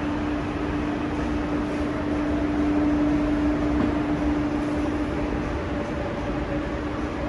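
Seoul subway Line 4 (Gwacheon line) electric train pulling into an underground platform, running with a rumble. A steady hum fades out past the middle, and a faint whine sets in that falls slightly as the train slows.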